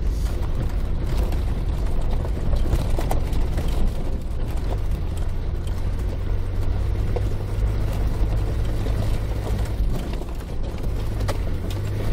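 Land Rover 4x4 driving up a rough, stony dirt track, heard from inside the cabin: a steady low engine drone with scattered small knocks and rattles from the bumpy ground.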